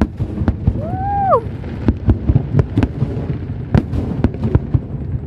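Aerial fireworks shells bursting in a large display: many sharp bangs, at times several a second, over a continuous low rumble of overlapping detonations.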